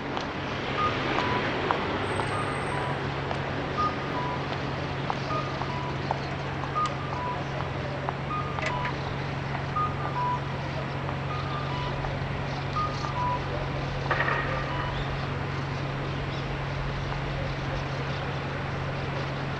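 Steady low hum of an idling vehicle engine, with a repeating electronic beep that alternates between two pitches at an even pace, and a few brief bird chirps.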